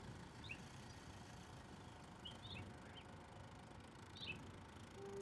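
Faint outdoor quiet: a few short, scattered bird chirps, about four brief groups, over a low, steady background noise.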